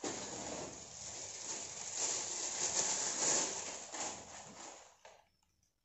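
Plastic packaging crinkling and rustling as it is handled and opened, a continuous crackle that starts abruptly, grows louder in the middle and dies away about five seconds in.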